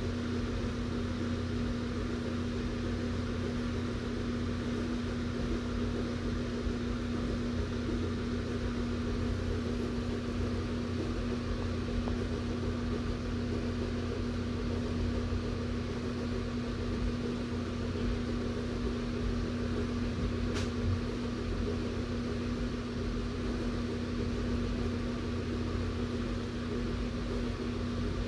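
Large electric fan running steadily: an even rush of air with a constant motor hum. One faint click about two-thirds of the way in.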